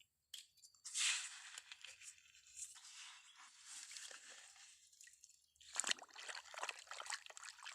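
Faint, uneven crunching and sloshing of wet sand and water being scraped and stirred, with small clicks.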